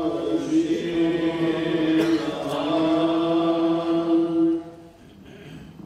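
Male liturgical chant holding one long, steady note that ends about four and a half seconds in.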